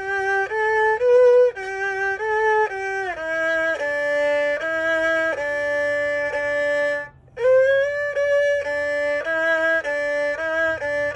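Erhu, the two-stringed Chinese bowed fiddle, playing a slow melody of held and sliding notes in two phrases, with a short break about seven seconds in.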